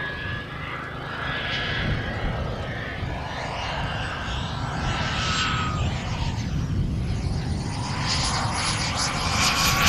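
Model jet's turbine (a Jet Central Rhino in a 1/6-scale Skymaster F-16) whining in flight. The whine slides down in pitch as the jet passes high over, then rises and grows louder over the last couple of seconds as it comes in low on approach, with wind rumble on the microphone underneath.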